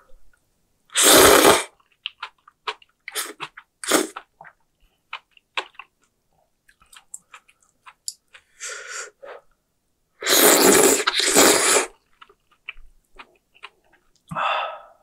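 A person eating kalguksu noodles, close up. There are two long, loud slurps, about a second in and again around ten seconds, with wet chewing and lip smacks between them.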